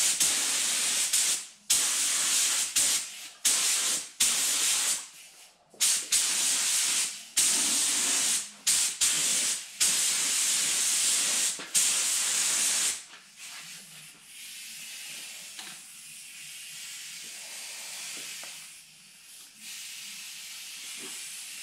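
Air-fed gravity-cup paint spray gun hissing in a run of short trigger pulls, each a second or two long, as it sprays paint onto the engine bay. The spraying stops about thirteen seconds in, leaving a fainter steady hiss.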